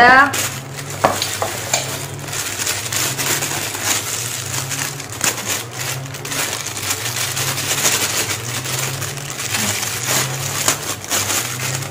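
Clear plastic bag crinkling and rustling as it is handled and opened, a continuous crackle of many small clicks.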